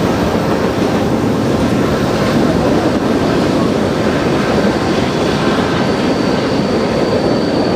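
Freight cars (tank cars, boxcars, covered hoppers and centerbeam flats) rolling steadily past on the rails, a dense continuous rumble of wheels and cars. A faint high wheel squeal comes in about five seconds in.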